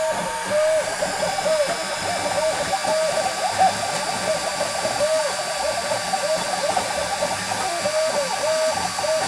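CNC stepper motors whining in short rising-and-falling tones, several a second, as they drive a diode laser head back and forth through the strokes of a text engraving on wood. Under them runs a faint steady high whine.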